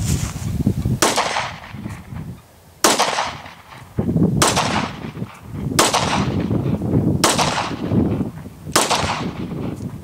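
Glock 22 .40 S&W pistol fired six times in slow, aimed succession, about a second and a half between shots, each crack trailing off in a short echo.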